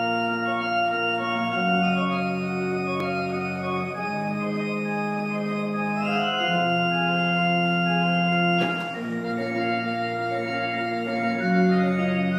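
Pipe organ playing held chords that change every two to three seconds, over a steady bass.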